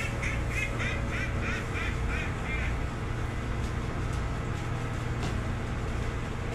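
A quick run of short, rising nasal calls, about three a second, stopping about three seconds in, over a steady low engine hum.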